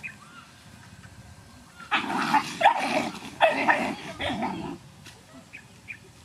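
Dogs snarling and growling at each other in a brief scuffle, starting about two seconds in and lasting about three seconds.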